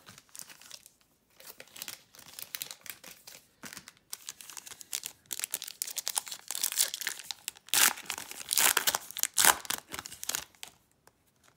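Shiny foil wrapper of a Panini Prizm basketball card pack being crinkled and torn open by hand, with the loudest crackling in the second half.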